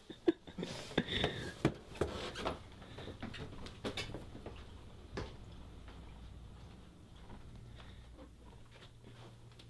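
Footsteps and small knocks of a person walking through a house, a run of irregular knocks that is loudest in the first few seconds and then thins out, over a faint steady low hum.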